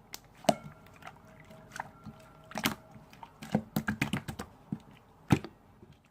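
Slime being squeezed and kneaded by hand, giving irregular wet clicks and pops, with one sharp pop about five seconds in.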